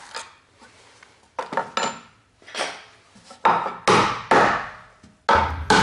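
A cordless drill-driver's whir cuts off at the very start. A series of irregular wooden knocks and clatters follows as tools and pine step boards are handled.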